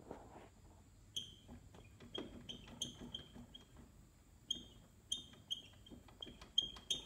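Short, high-pitched squeaks repeating irregularly, coming faster near the end, from the worn front wheel bearings of a 2016 Polaris Sportsman 450 ATV as the wheel turns: the bad-bearing squeak.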